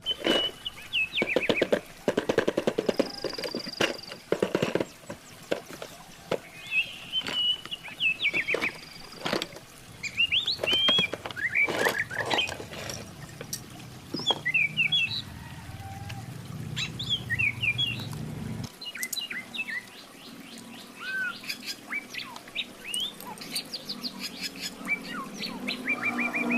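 Small birds chirping and tweeting in outdoor ambience, with repeated sharp clicks and rustles of toy packaging being handled during unboxing.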